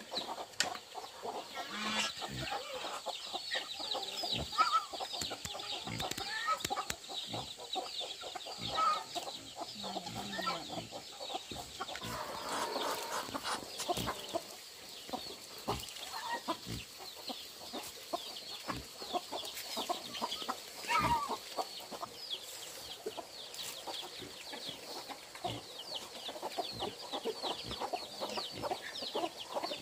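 Chickens clucking, with many short, high calls packed closely together throughout and scattered sharp clicks.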